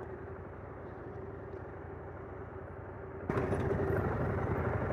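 Husqvarna Norden 901 motorcycle engine running steadily at low speed, heard from on the bike. About three seconds in it abruptly gets louder.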